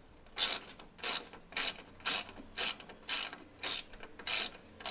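Ratcheting box-end wrench turning a 10 mm bolt out, its pawl rasping on each back-stroke of the handle, about two strokes a second.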